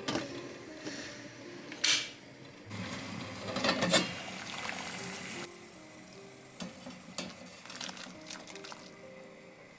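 Cooking sounds from a pan over soft background music: a knock about two seconds in, then a few seconds of stirring noise that stops about halfway through, leaving only the music.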